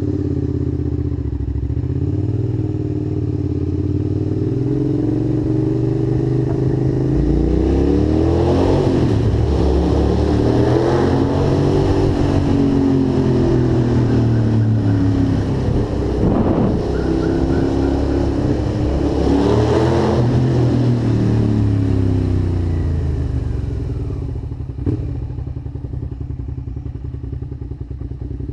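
Suzuki SV650 V-twin engine with an aftermarket slip-on exhaust, idling and then revved up and down several times before settling back to a steady run. There is a single sharp click near the end.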